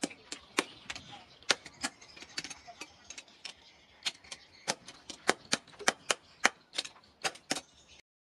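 Hand sledgehammer striking a glowing steel strip cut from a bearing on a steel anvil post: sharp metal-on-metal blows at about three a second, the hot steel being forged.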